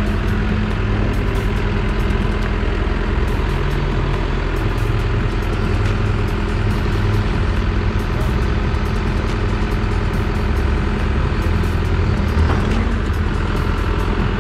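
Caterpillar 420E backhoe loader's diesel engine running steadily as the machine drives slowly over dirt.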